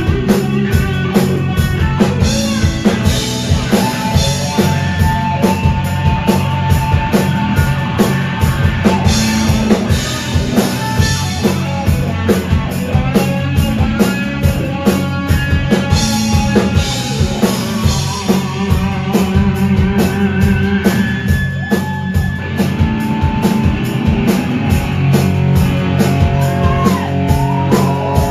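Rock band playing live: electric guitar lines over a steady drum kit beat, loud throughout.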